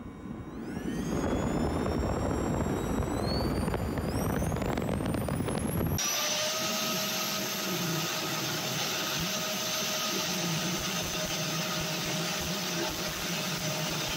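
Hybrid jet thruster, a stainless-bottle combustor fed by an electric-motor-driven 3D-printed compressor. Over the first six seconds the compressor spools up under combustion, its whine rising steadily in pitch. About six seconds in, the sound switches to the thruster running steadily at high power: a loud rushing noise with a steady whine.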